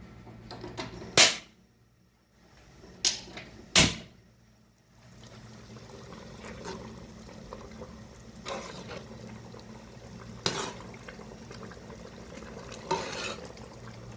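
Sharp clanks of metal cookware, loudest in the first few seconds, then a steady low simmer of stew in the pot on the stove, with a few lighter clinks of a utensil against the pot.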